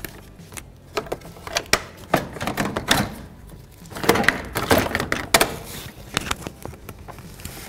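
Radiator fan shroud being pulled and worked out of a car's engine bay: a run of sharp knocks and clicks, with a longer stretch of scraping and rubbing about halfway through.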